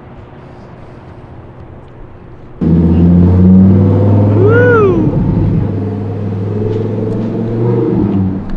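Steady car engine and road noise, cutting in loud and sudden about two and a half seconds in after a faint low hum. About two seconds later a short tone rises and falls once.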